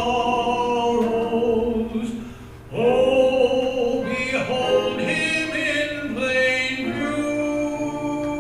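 A man singing a sacred solo into a microphone, in long held notes, with a short break for breath about two and a half seconds in.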